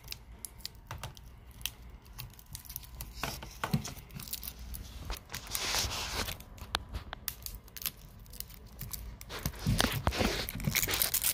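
Thin plastic protective wrapping being peeled and crinkled off a new webcam by hand: irregular crackles and tearing, with longer stretches of rustling about six seconds in and again near the end.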